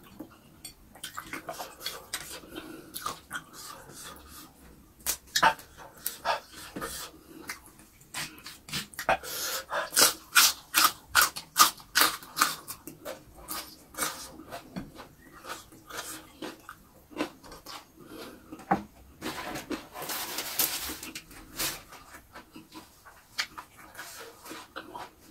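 Close-miked wet chewing, lip-smacking and clicky mouth sounds of someone eating thick, chewy skin and tendon with rice by hand, busiest about ten seconds in. Around twenty seconds in comes a breathy rush of noise lasting a second or two.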